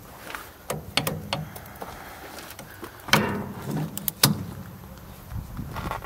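A series of sharp mechanical clicks and clunks from hydraulic hose quick couplers and hoses being handled on a compact loader. The loudest clunk comes about three seconds in, and a couple more follow around four seconds.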